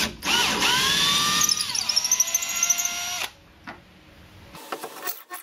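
Cordless drill-driver turning a screw in a mahogany deck beam: the motor whines up to speed, slows and drops in pitch about two seconds in, and stops a little after three seconds.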